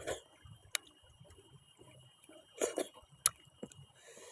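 Close-miked chewing of raw vegetables: scattered soft crunches and wet mouth clicks, with a sharp click a little after three seconds.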